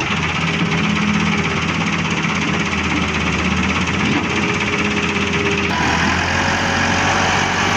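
A heavy diesel engine running steadily under no particular strain. Its sound changes abruptly about six seconds in.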